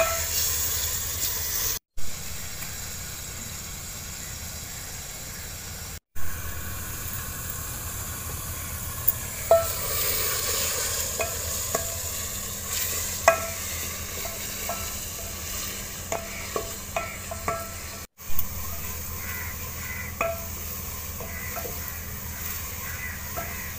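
Tomatoes and green chillies sizzling in hot ghee in an aluminium pot, stirred with a wooden spoon that scrapes and taps against the pot at irregular moments. The sound cuts out briefly three times.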